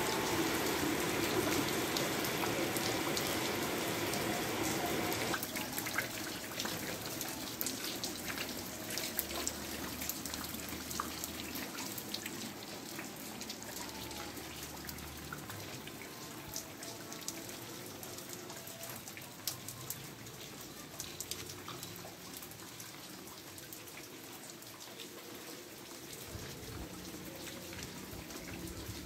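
Steady rain falling, with many sharp drops dripping and splashing onto wet ground. A fuller rush of running water cuts off suddenly about five seconds in.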